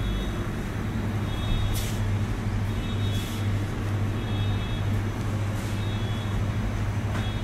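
Steady low machine hum from the supermarket's refrigerated display coolers. Faint short high beeps come every second or two.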